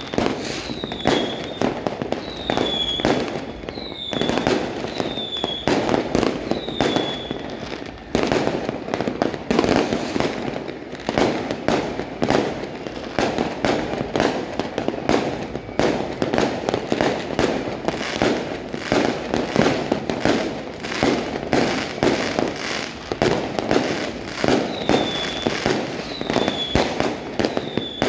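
Fireworks and firecrackers going off continuously in dense, overlapping bangs and crackles. A short, high, falling chirp repeats about once a second near the start and again near the end.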